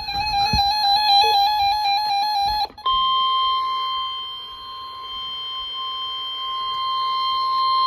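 Weather radio alert signal for a severe thunderstorm warning. For the first two and a half seconds it is the warbling, buzzy SAME data header. After a short break comes the steady 1050 Hz weather radio warning alarm tone, which holds for the rest of the time.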